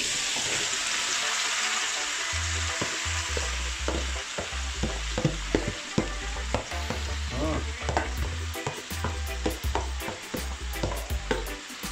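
Seasoned fish sizzling in hot oil just after being dropped into the pan. The sizzle starts loud and slowly eases, with light knocks and clicks scattered through the second half.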